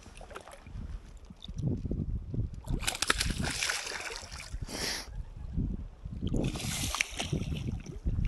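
Shallow water splashing and sloshing at the shore in two irregular spells, the first from about one and a half seconds to five seconds in and the second shorter, near the end, over a low rumble on the microphone.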